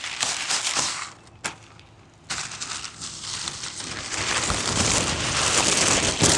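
Clear plastic packaging sleeve crinkling and rustling as a kite is pulled out of it. It drops off for about a second, then comes back louder and fuller from just past two seconds in.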